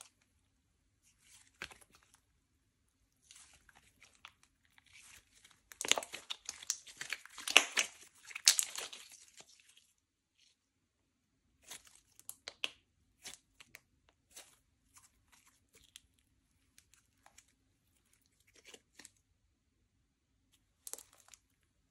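Slime being pressed and stretched by hand, giving sticky crackling and popping. The crackling is densest for about four seconds near the middle, then thins to scattered pops and clicks.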